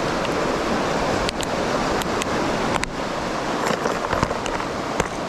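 Steady rush of turbulent, churning aqueduct water, with several sharp clicks of a plastic tackle box being handled and opened.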